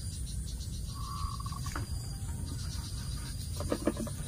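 Steady low outdoor rumble, with a short high note about a second in. Near the end come a few clicks and rattles as a net fish trap is handled at the water's edge.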